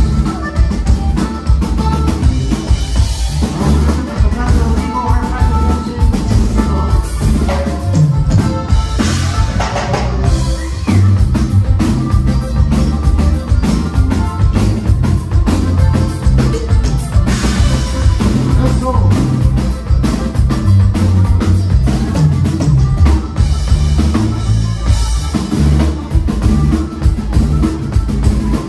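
Live norteño band music, with a drum kit and bass keeping a steady beat throughout.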